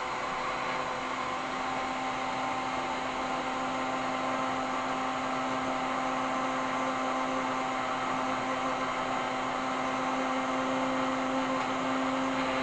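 Countertop electric blender running steadily at one constant pitch, blending a liquid flan mixture.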